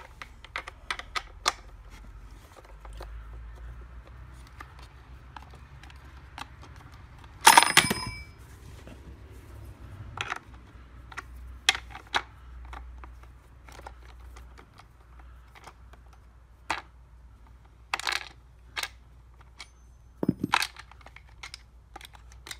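Scattered metallic clicks and knocks of hands and a tool working the two bar nuts off a Poulan PL3314 chainsaw's side cover. About seven and a half seconds in there is one loud metal clatter that rings briefly.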